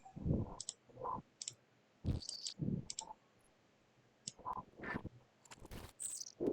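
AI-generated footstep sounds from a RAVE variational autoencoder, being re-decoded through a second model trained on water sounds: an irregular series of short thuds and sharp clicks.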